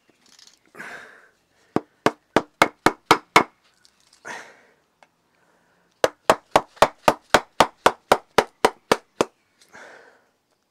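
Mallet tapping a gouge into a wooden kuksa blank to hollow out the bowl: two quick runs of sharp knocks, about eight and then about a dozen, three to four a second, with brief softer scuffs between the runs.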